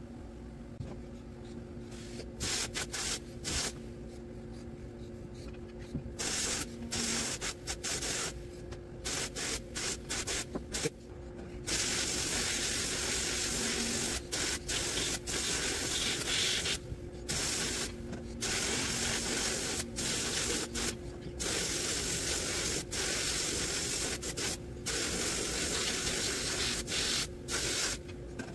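Sandblast cabinet gun blasting abrasive at reel mower parts to strip old rust and paint: a loud hiss switched on and off in short bursts at first, then in longer runs with brief pauses from about halfway through. A faint steady hum runs underneath.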